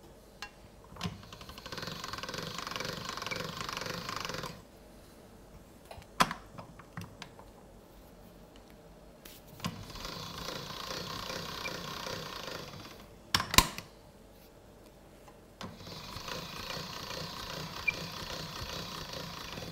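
Hand-cranked chrome pasta machine being turned in three runs of a few seconds each, its gears and rollers rattling steadily as dough is fed through, with a few sharp clicks between runs. In the last run the dough passes through the wide-noodle cutter.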